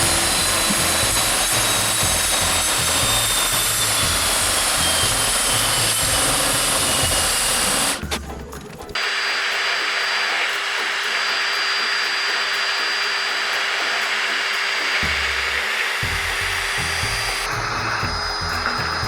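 Power drill spinning a 2-inch 80-grit hard-backed sanding disc, grinding through cured fiberglass to open surfboard fin boxes: a steady whine with the grinding noise, its pitch sagging slightly under load. It stops briefly about eight seconds in, then runs again.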